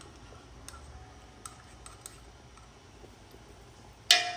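Light utensil ticks, then about four seconds in a sharp metallic clank with a brief ring as a utensil strikes the stainless steel stock pot.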